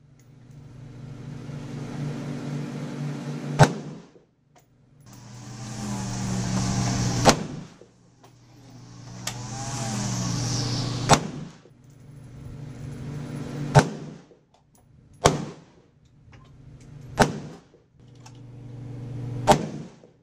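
Bushmaster AR-15 rifle in 5.56 firing seven single shots, a few seconds apart, each a sharp crack. Between the shots a steady low hum and hiss swells and then cuts out.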